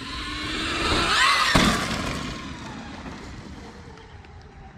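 A rising whoosh with a whine that swells, peaks in a single sharp hit about a second and a half in, then fades away.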